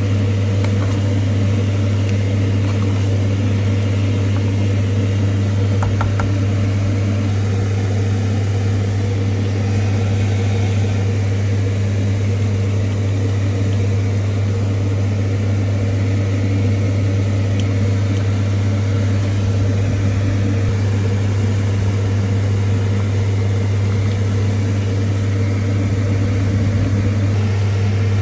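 Steady low electric hum of a running motor or appliance, with a faint hiss; it stays the same throughout.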